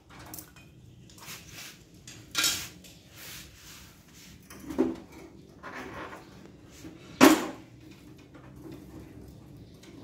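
Gas water heater's cover being handled and worked loose by hand: a handful of separate knocks and scrapes, the loudest about seven seconds in.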